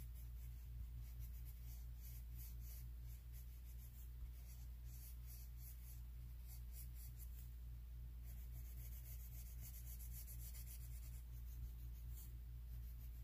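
Coloured pencil scratching faintly on a colouring book page in short, repeated shading strokes, over a steady low hum.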